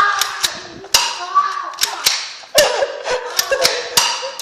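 BB gun firing repeatedly: a string of sharp, irregularly spaced cracks, about two a second, with people's voices underneath.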